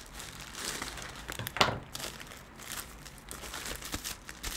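Scissors snipping through a plastic poly mailer bag and the thin plastic crinkling as it is cut and pulled open, with a sharper, louder crackle about a second and a half in.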